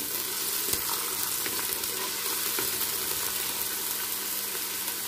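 Chopped onions sizzling steadily in hot oil in an aluminium pressure cooker, with small crackles and a wooden spoon stirring them, at the start of frying them to golden brown.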